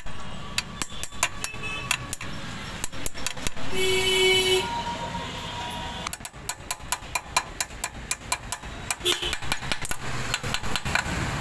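Rapid, irregular light metallic clicks and taps from steel parts and tools being worked at a motorcycle's steering-head bearing cone, over a steady low hum of street traffic. About four seconds in, a vehicle horn sounds briefly.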